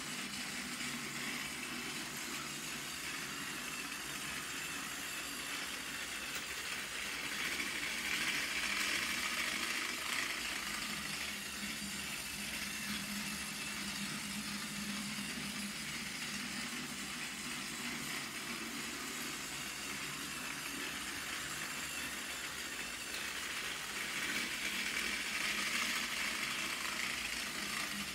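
Plarail Edward battery-powered toy train running on plastic track: the steady whir of its small motor and gears with a low hum. The sound grows louder twice, about eight seconds in and again near the end.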